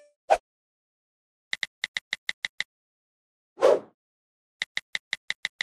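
Keypress clicks of a phone's on-screen keyboard: a quick run of eight taps, then a whoosh, then another steady run of taps, one per character typed into the login fields.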